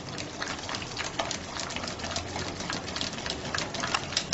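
Spatula stirring thick, bubbling custard in a steel pot: quick, irregular scrapes and wet clicks, several a second, over a steady hiss. The custard has thickened and is bubbling, a sign that it is ready.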